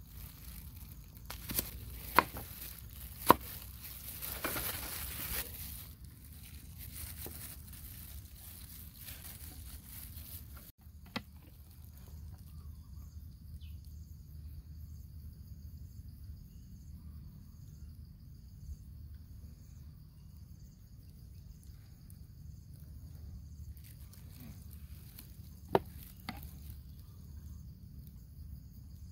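A cleaver chopping cucumber on a wooden cutting board: three sharp chops in the first few seconds, then softer knife-and-board scraping. From about eleven seconds in, insects chirp steadily in a high, rapidly pulsing drone, with a couple of light clicks near the end.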